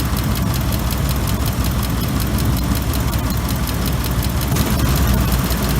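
2005 Ford F-150's engine idling steadily with the air conditioning running while its refrigerant is being recharged.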